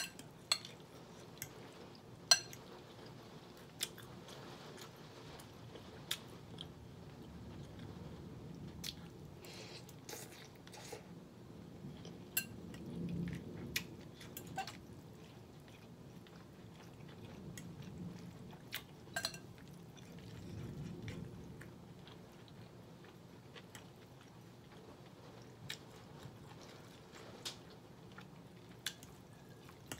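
A person chewing soft food, sautéed cabbage and smoked turkey wing, close to the microphone, with sharp clicks and smacks scattered throughout.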